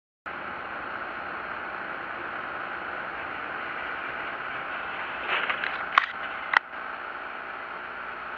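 Steady car road and engine noise as picked up by a dashcam's microphone, with a cluster of clicks and knocks about five to six and a half seconds in, the two sharpest about half a second apart.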